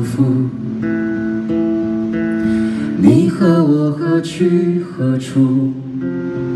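Live band music: a woman singing into a microphone over guitar accompaniment, with held notes and then sliding sung phrases about halfway through.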